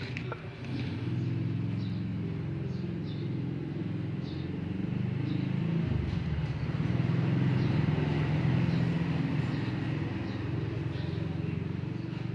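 An engine running with a low rumble whose pitch wavers, getting louder for a few seconds near the middle.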